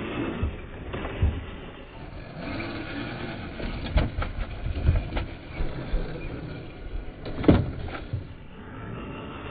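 Scale RC 4x4 crawler with a Holmes Hobbies 40T brushed motor, whirring at crawling speed while its tyres grind over loose stones and roots. Several knocks and clatters come as the wheels and chassis strike rocks, the loudest about seven and a half seconds in.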